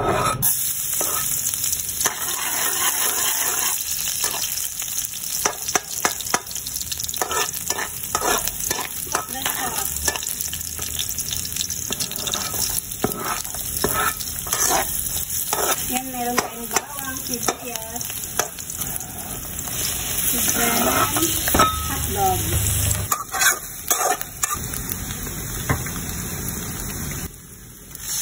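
Chopped garlic and onion sizzling in hot oil in a wok, stirred with a spatula that scrapes and clicks against the metal pan. There is a steady frying hiss throughout, with many short scrapes and taps.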